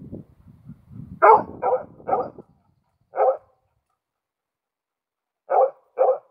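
A male Karelian Bear Dog barking: three quick barks about a second in, a single bark a second later, then a pair of barks near the end. Low, irregular rumbling noise sits under the first two seconds.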